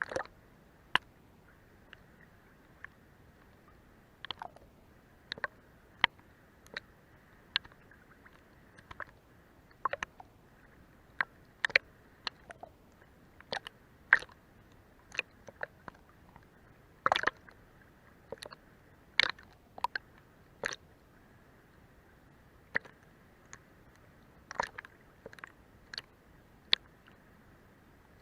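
Sea water against a boat's hull: irregular sharp little clicks and splashes, one or two a second and sometimes in quick clusters, over a faint steady wash.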